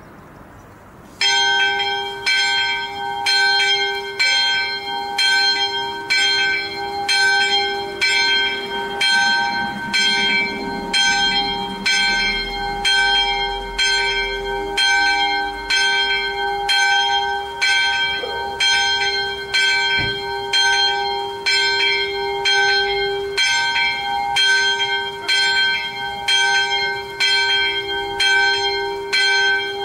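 Church's small bell (the sonello) swinging and striking about twice a second on one steady note, starting about a second in. This is the call rung at 9:27, shortly before Mass.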